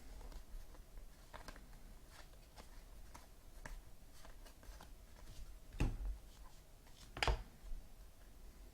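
Trading cards being handled and flipped through by hand: faint soft ticks and rustles, with two sharper snaps about six and seven seconds in.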